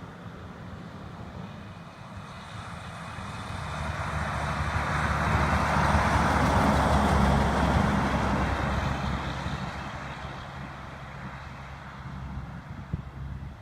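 International 9200 logging truck driving past: the engine and tyre noise swells for a few seconds, peaks about halfway through, then fades away.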